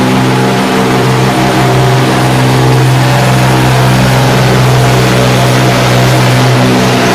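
John Deere pulling tractor's diesel engine running flat out under load as it drags the weight sled down the track. The engine note holds at a steady pitch throughout.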